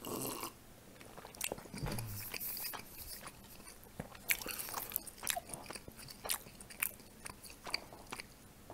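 Mouth sounds of a man eating: a sip from a glass mug at the start, then chewing a pancake with many small wet clicks and lip smacks.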